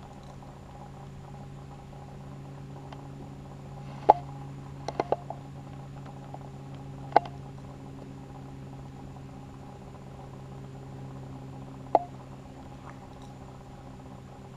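A steady low hum with a few sharp knocks over it: one about four seconds in, a quick cluster of three or four a second later, then single ones about seven and twelve seconds in.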